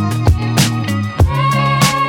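Background music with a steady beat: sustained bass and melody notes over regular drum hits.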